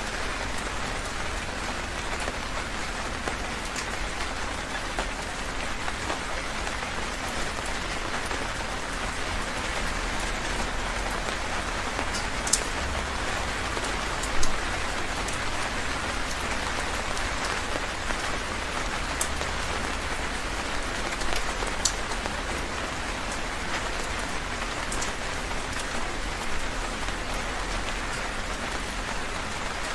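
Heavy rain falling steadily, a dense even patter, with occasional sharp drops striking close by.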